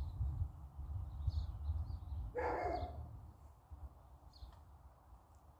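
Wind rumbling on the microphone, with a few faint bird chirps and one short animal call, about half a second long, about two and a half seconds in.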